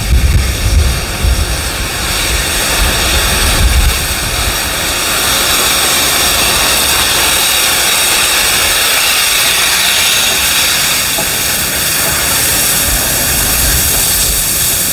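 Steam hissing loudly and steadily from NSW AD60 Beyer-Garratt steam locomotive 6029, with a low rumble underneath in the first few seconds that then fades, leaving the hiss.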